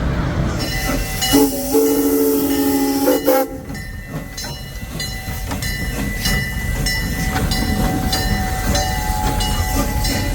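Phoenix Rising inverted roller coaster train running through its brake run. A steady two-note tone holds for about two seconds, then a long run of clicks and clatter from the wheels on the track.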